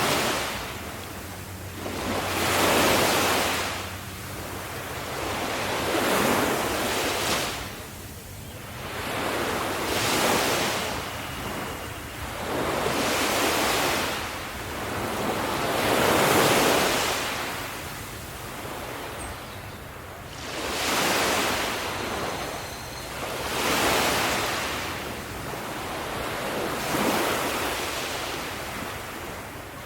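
Ocean waves breaking on a shore, the surf swelling and falling away with each wave about every three to four seconds.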